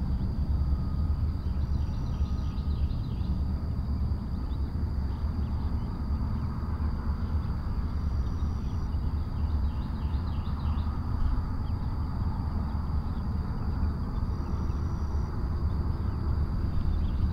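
Open-field ambience: a steady low rumble with a thin constant high tone over it, faint bird chirping, and a short high call that comes three times, about six seconds apart.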